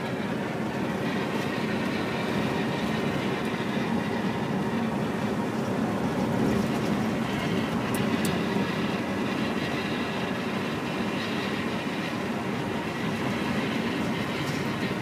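Interior noise of a 1968 GMC 4903 coach at highway speed: its diesel engine running under the floor, with tyre and road noise, steady.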